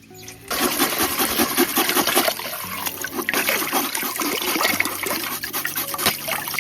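Running water splashing, starting abruptly about half a second in and continuing steadily, with light background music underneath.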